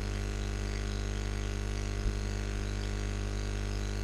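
Steady low electrical hum with a buzz, mains hum in the recording chain, and one soft click about two seconds in.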